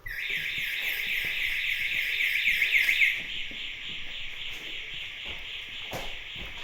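Building intruder alarm set off by motion sensors: an electronic siren with a rapid sweeping warble that starts abruptly. It is loudest for the first three seconds, then a little quieter. A single knock near the end.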